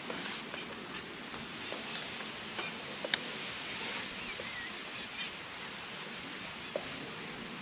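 Outdoor bankside ambience: a steady hiss of wind and rustling reeds, with a few faint clicks, one sharp click about three seconds in, and a short bird chirp about four and a half seconds in.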